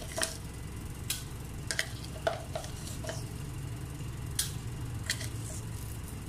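Scattered light clicks and taps of a spoon and salt against a stainless-steel bowl while half a teaspoon of salt is added, over a steady low background hum.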